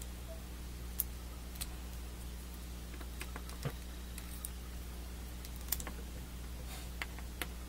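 Hard plastic leg parts of a Master Grade Gundam AGE-2 model kit clicking and tapping as they are handled and pressed together: about ten scattered sharp clicks at irregular intervals, over a steady low hum.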